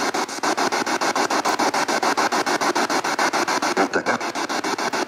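A steady hiss of noise chopped into rapid, even pulses about nine times a second, with no speech.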